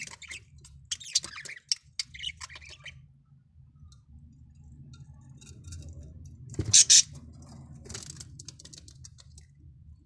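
Budgerigar nestlings shuffling in the nest box, with scratchy clicks and rustles from claws and pin feathers on the floor. One short, much louder burst comes about seven seconds in.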